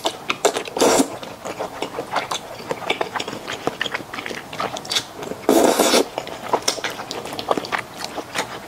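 Close-miked eating of thick, saucy Xinjiang fried rice noodles: wet chewing and mouth clicks throughout, with two louder slurps, about a second in and a longer one around five and a half seconds.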